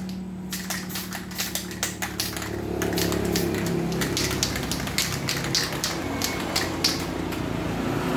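Aerosol spray paint can being shaken, its mixing ball rattling in quick, irregular clicks, over a steady low hum.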